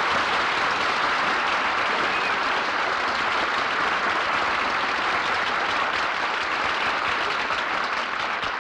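Studio audience applauding after a musical number, heard on an old radio broadcast recording: a steady wash of clapping that begins to die away near the end.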